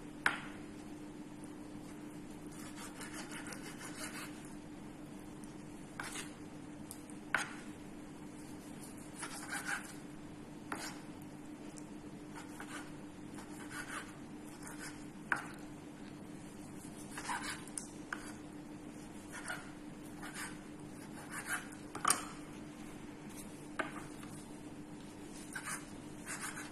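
Kitchen knife slicing raw chicken breast into strips on a wooden cutting board: irregular sharp knocks of the blade meeting the board, one or two seconds apart, over a steady hum.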